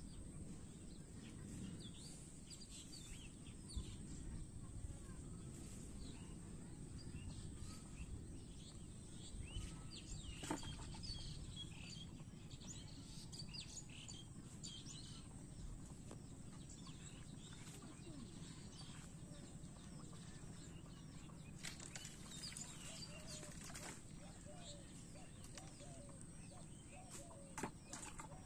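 Faint outdoor ambience: a steady low rumble with scattered short bird chirps, and a few soft clicks near the middle and near the end.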